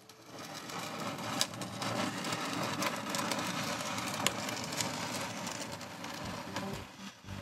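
Steel trowel scraping and smoothing wet concrete-and-mortar repair paste over the layout surface, a continuous rough scraping with scattered sharp clicks.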